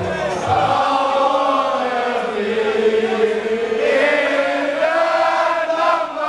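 A packed crowd of football supporters singing a drawn-out chant together, many voices in unison.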